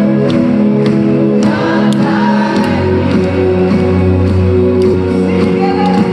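Background music: held chords over a light, regular beat, with a low bass note coming in about two and a half seconds in.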